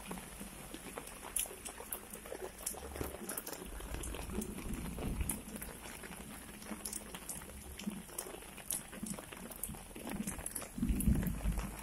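Heavy rain falling onto a flooded street where muddy runoff flows: a steady wash of water with many scattered sharp drop hits. A louder low rumble comes near the end.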